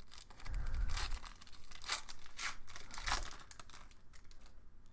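Wrapper of an Upper Deck hockey card pack torn open and crinkled in the hands: a series of crackling rips, the longest about half a second in, then several sharp tears a little apart.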